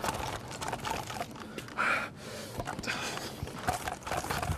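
A person's short, sharp breaths or gasps, two of them about two and three seconds in, over a steady crackling hiss.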